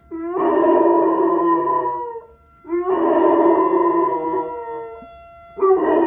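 Golden retriever howling along to a tornado siren test: three long howls, each opening on a short rising note and then held. A fainter steady siren tone carries on between them.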